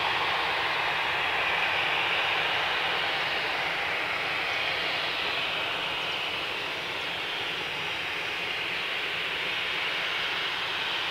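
Airbus A321 airliner's twin turbofan engines running at taxi power as it rolls along the taxiway: a steady jet whine and rush of air.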